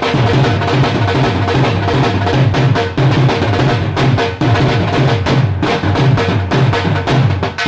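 Dhol drumming: a fast, continuous rhythm of sharp lighter strokes over deep bass beats that come roughly twice a second.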